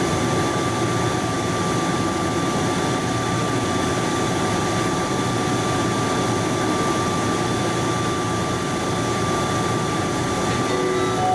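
Steady cabin noise inside an Airbus A321: an even rushing hum with a thin, constant high whine running through it.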